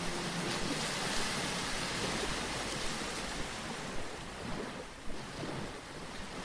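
Sea waves washing on a shore: a steady rush of surf that swells about a second in and eases off toward the end.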